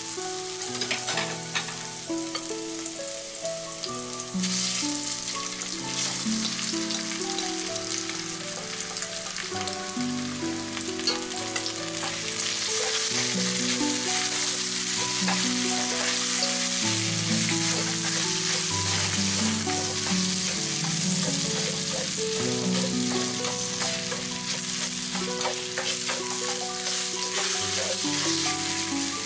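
Spring onion, ginger and garlic sizzling in hot oil in a wok, then marinated sliced pork stir-fried in it; the sizzle grows louder about twelve seconds in as the pork cooks and is stirred.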